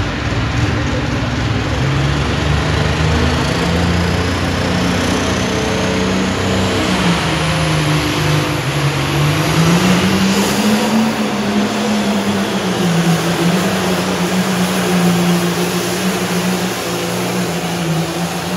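Diesel pulling tractor's engine running hard under load as it drags a weight-transfer sled, its pitch wavering and climbing briefly about ten seconds in. A high whine rises over the first several seconds.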